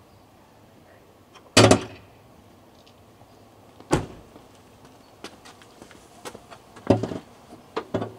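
2019 Chevy Silverado pickup's door slamming shut about a second and a half in, the loudest sound. A single knock follows a couple of seconds later, then clunks near the end as the hood latch is released and the hood lifted.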